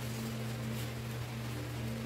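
Electric fan running with a steady low hum, with faint rustling as food is handled at the table.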